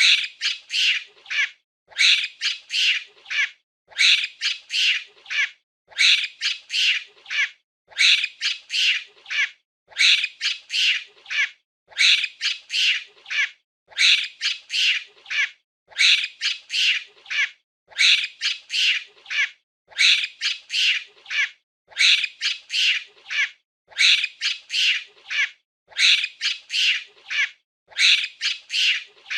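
Monkey chattering, a burst of several quick, high-pitched shrieking calls about every two seconds, repeating in a regular loop.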